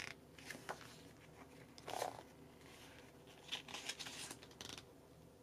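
Pages of a glossy album photobook being turned by hand: faint paper rustles and soft brushes, with one slightly louder brush about two seconds in and a short run of rustles past the middle.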